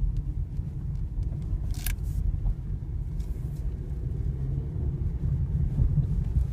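Volkswagen Golf 7 driving over uneven road: a steady low rumble, with a short crunching creak about two seconds in and a few faint clicks. The creak is from the front suspension, which the owner traces to worn rear silent blocks (bushings) of the front control arms.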